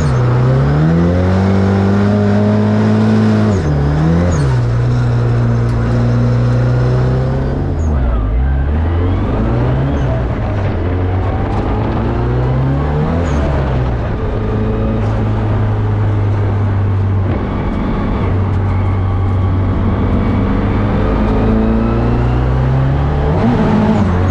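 Nissan S14 drift car's engine being driven hard, its pitch rising and falling every few seconds as the throttle is worked through drifts.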